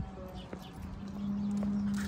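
Quick footsteps on a concrete sidewalk, a few light taps, over a steady low hum that gets louder about a second in.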